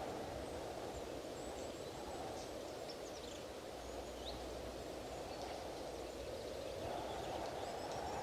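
Strong wind blowing in gusts, easing a little mid-way and rising again near the end, with faint high bird chirps scattered through it.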